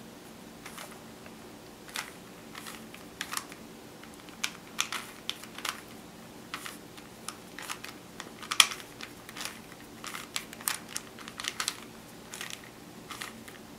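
A 3x3 Rubik's Cube's plastic layers being twisted by hand: quick, irregular clicks and clacks, a few a second, with one sharper snap about eight and a half seconds in. A faint steady hum runs underneath.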